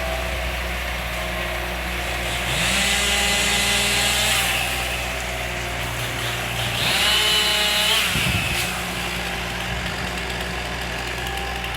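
Chainsaw revving up twice, first for about two seconds and then for about a second, over a steady low idling engine.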